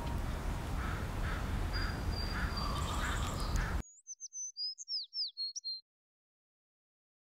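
A bird giving a run of short calls about twice a second over a steady low outdoor rumble, all cut off suddenly about four seconds in. A brief run of high, falling bird chirps follows, then silence.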